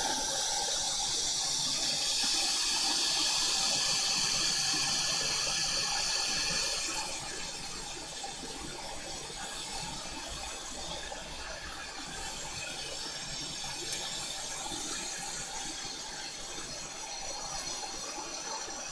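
Steady hiss of hot air blowing from a preheater under the board, heating it to lift a damaged LCD connector. The hiss drops noticeably in level about seven seconds in.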